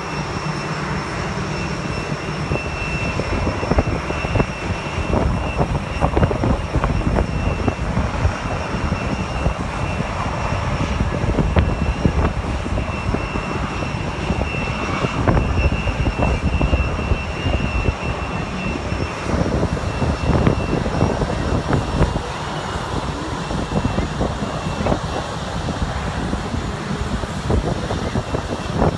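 Jet airliner engines running close by: a loud, crackling rumble with a steady high whine over it that weakens about two-thirds of the way through.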